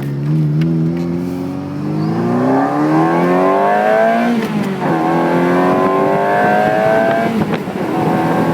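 1992 Ferrari 348 TS's mid-mounted 3.4-litre V8, fitted with a performance exhaust, accelerating hard from a standstill. The pitch climbs steadily, drops sharply about four seconds in at an upshift, climbs again, and drops at a second upshift near the end.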